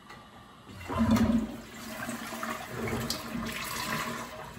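Toilet flushing, started with the push button on top of the tank: a loud rush of water begins about a second in and carries on as running water, tapering off near the end.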